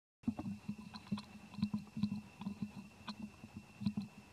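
Irregular crackling and rustling of dry fallen leaves as monkeys move and handle things among them, a string of short uneven clicks, over a faint steady high tone.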